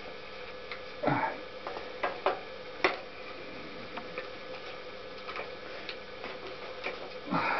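Scattered light clicks and knocks of the radiator and hoses being handled and pushed into place on a Honda CX500 engine, the sharpest about three seconds in, over a faint steady hum.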